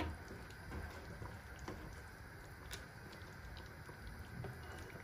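Slotted spatula stirring chicken pieces in a thick yogurt-and-cream tomato sauce simmering in a pot: faint soft scrapes with scattered small ticks and wet pops.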